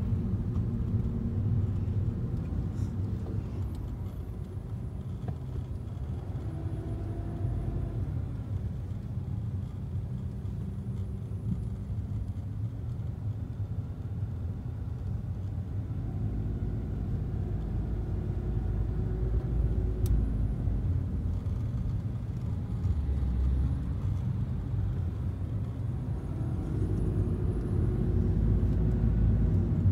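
A car's engine and tyres on the road, heard from inside the cabin: a steady low rumble whose engine note rises and falls a little, louder near the end.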